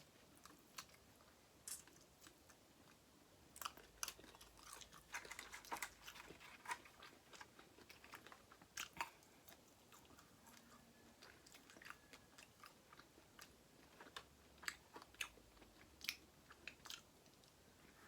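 Faint mukbang eating sounds from a seafood boil: a person chewing and biting, with scattered short wet clicks and crunches.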